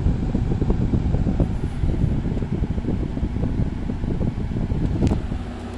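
2016 Frigidaire 5,000 BTU window air conditioner running its blower fan on low, air rushing across the microphone in gusts, with no compressor heard. A click about five seconds in, after which the sound turns steadier with a low hum.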